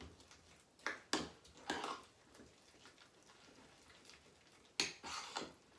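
A spoon stirring and mashing mustard into mashed potato in a bowl: a few soft clinks and wet scrapes of the spoon against the bowl, about a second in, near two seconds, and again near the end.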